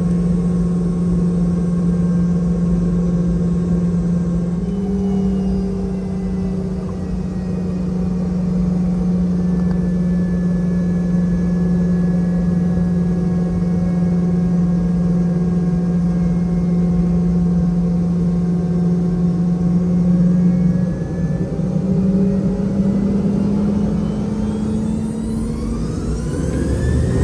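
Boeing 717-200's rear-mounted Rolls-Royce BR715 turbofans heard inside the cabin, running with a steady drone and whine. The pitch steps up slightly about five seconds in. Near the end a fast-rising whine sets in as the engines spool up to takeoff thrust.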